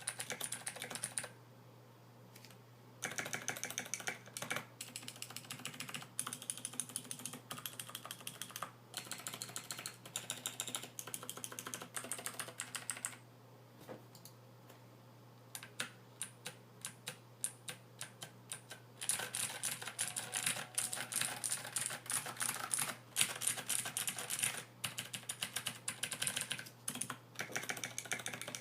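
Royal Kludge RK61 mechanical keyboard being typed on in fast runs of keystrokes, with SA PBT doubleshot keycaps, lubed and balanced stabilizers and tape-dampened keycaps; typing pauses twice, about two seconds in and again around the middle. A faint steady hum sits underneath.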